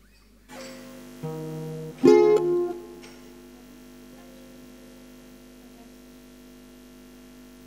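Instrumental opening of a slow song. A chord comes in about half a second in and another about a second later, then a louder chord is struck about two seconds in and left to ring and fade, over a faint mains hum.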